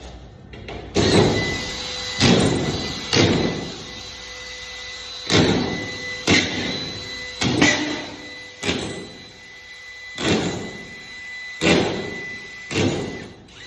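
Drywall screw gun running with a steady whine while screws are driven into drywall in quick succession: about ten short bursts, roughly one a second, one for each screw driven home.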